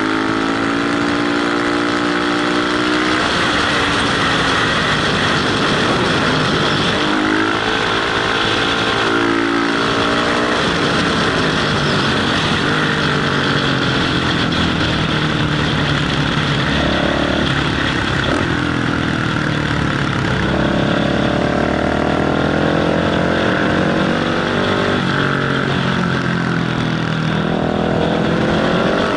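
Motorcycle engine under way, accelerating and shifting gears, its pitch climbing and dropping back several times, with steady wind rush on a helmet-mounted microphone.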